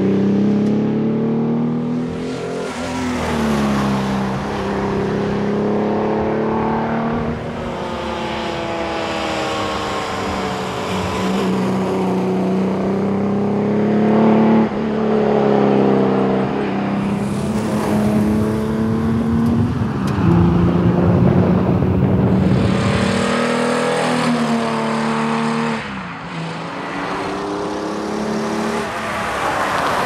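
Holden Torana GTR XU-1's straight-six engine revving hard and climbing through the gears, its pitch rising and then dropping at each change, as the car passes several times.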